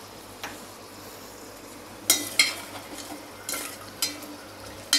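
A metal spoon stirring curry in a steel pot, knocking and scraping against the pot's side with several ringing clinks. The loudest clinks come about two seconds in and right at the end.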